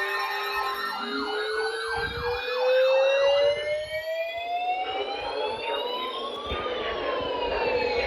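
Sirens: a slow wail rises in pitch to a peak about six seconds in and then falls, layered over a faster yelping siren in the first few seconds. A steady electronic tone cuts off about a second in.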